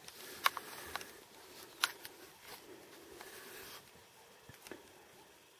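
A few sharp clicks and soft rustles of handling close to the microphone: three clicks in the first two seconds, then faint rustling over quiet background hiss.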